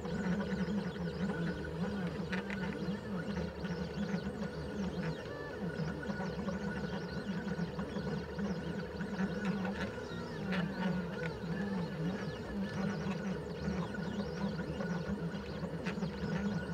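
CNC 3018 stepper motors driving a drag-knife cutter across sticker sheet, a humming whine whose pitch keeps shifting as the axes change speed and direction, with a few faint ticks.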